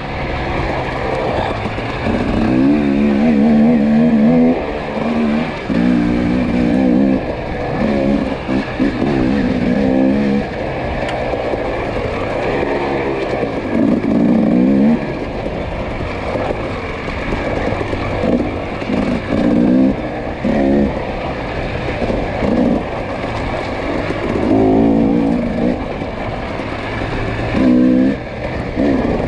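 Dirt bike engine revving up and down over and over as the throttle is opened and closed while riding an off-road race trail.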